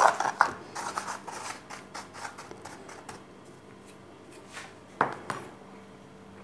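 Metal spoon scraping and tapping against a plastic container as dry salt-and-sugar curing mix is spread over its bottom, then one sharp knock about five seconds in.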